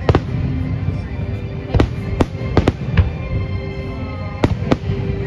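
Aerial fireworks shells bursting in a large display: a string of sharp bangs, about nine, some in quick pairs, over a continuous low rumble.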